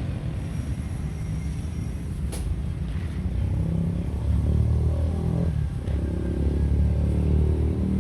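A vehicle engine running with a low rumble, growing louder about halfway through, with one sharp click a little over two seconds in.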